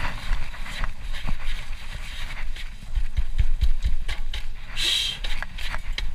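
Scraping, rubbing and light metallic knocks as a front brake caliper bracket is cleaned off by hand, with a brief harsher scrape about five seconds in.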